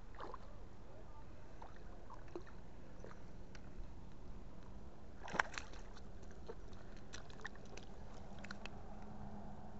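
Small splashes and sloshing of a hooked smallmouth bass being brought in at the water's edge, with one sharp slap about halfway through as the fish comes out onto the rock, then a few light taps and clicks.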